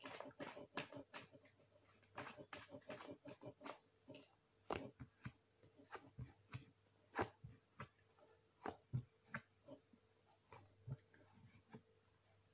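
Tarot cards shuffled by hand: a quiet run of irregular soft card clicks and flicks, with a couple of sharper snaps about five and seven seconds in.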